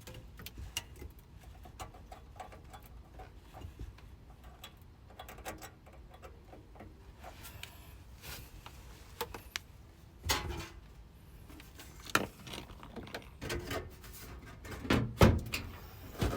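Scattered clicks, taps and knocks of hands and tools working on an air handler while a new run capacitor is fitted for the blower motor, with a few louder knocks about 10, 12 and 15 seconds in, over a faint low hum.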